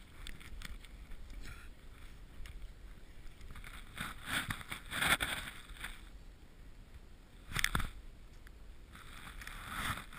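Snowboard sliding through snow, a low steady rush with swishing surges of the edge scraping the snow at the turns, the strongest about five seconds in and again near eight seconds.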